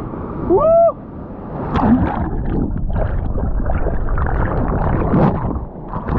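Loud rushing and churning of turbulent whitewater around an action camera dragged underwater and through foam by a breaking wave: a surfing wipeout. It is preceded, under a second in, by a brief pitched cry that rises and falls.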